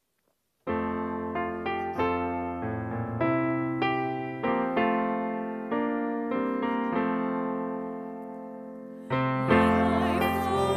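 Piano playing a slow run of chords and single notes, each struck and left to fade, starting under a second in. Near the end a singer's voice with vibrato comes in over the piano.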